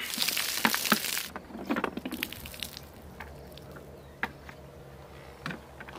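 Water gushing out of a plastic water bottle and splashing onto the ground for about a second, followed by scattered crackles and clicks of the plastic bottle being handled.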